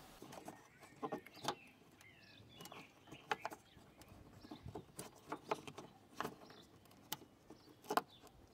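Faint, scattered clicks and knocks of hard plastic as the front indicator bulb socket is twisted anti-clockwise and worked out of the back of a Nissan Primera P12 headlamp.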